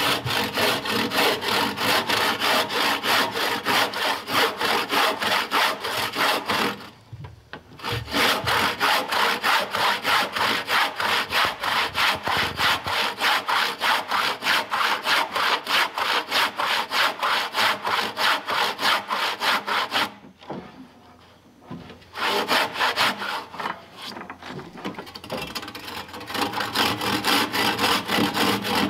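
Handsaw cutting into a peeled round log in quick, even back-and-forth strokes, making the saw cuts for a round-log corner notch. The sawing stops briefly twice, and the strokes are lighter for a few seconds after the second stop.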